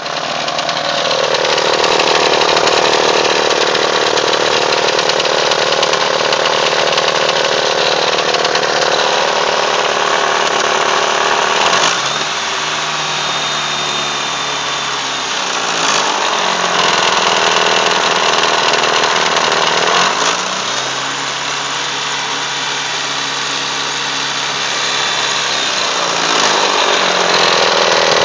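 Mitsubishi Eclipse engine running with a loud rattle from the pulley end, which the owner suspects comes from behind the timing cover. The rattle is at its worst at idle and goes away when the engine is revved. The engine speed shifts a few times along the way.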